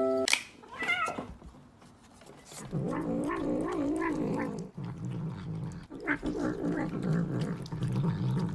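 A cat gives a short meow about a second in. From about three seconds in it makes a long, low, wavering vocal sound while eating from a plate.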